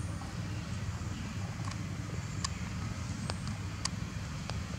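Outdoor background sound: a steady low rumble, with scattered short, high ticks and chirps.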